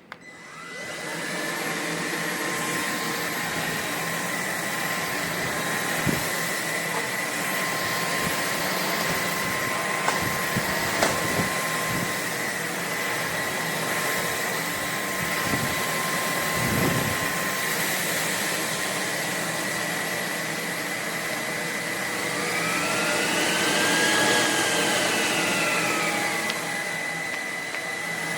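Cordless stick vacuum (Roborock H60 Ultra) starting up and spinning up over the first second or two, then running steadily with a high whine. Near the end the motor's pitch rises and falls back as it speeds up and slows down, and a few light clicks and a short thump sound midway.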